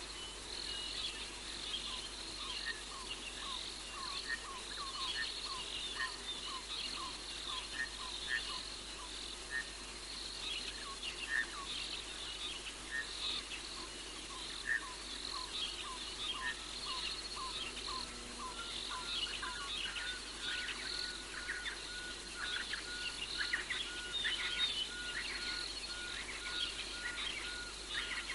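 Night chorus of insects, with crickets chirping continuously and high. A lower call repeats about twice a second in the first half, and a rapid run of even, steady pips comes in about two-thirds of the way through.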